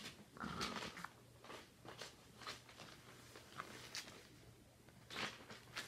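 Clear plastic project bag crinkling and rustling as it is handled, in short scattered rustles and clicks.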